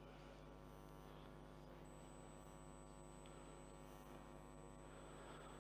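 Near silence: a faint, steady electrical mains hum.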